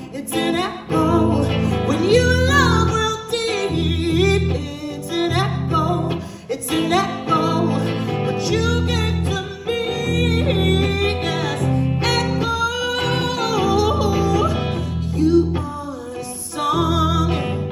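Live band music: a woman singing lead into a microphone while strumming an electric guitar, over a bass line that moves in repeated low notes.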